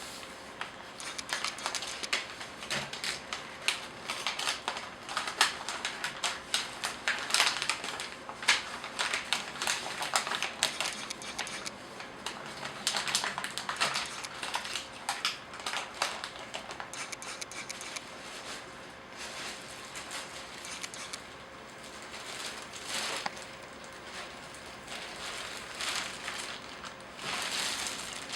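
Paper and a plastic bag crinkling and rustling in irregular bursts, as paper holding spilled copier developer powder is folded up and bagged; the handling is busiest in the first half and picks up again near the end.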